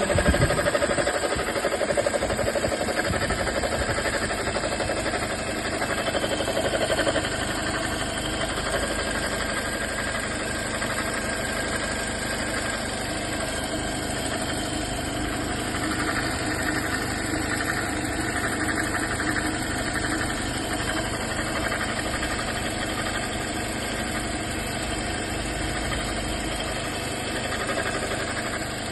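A 2018 Toyota Corolla's engine idling with a steady noise from the accessory belt area, the sign of a worn alternator bearing. The sound is a little louder for the first several seconds.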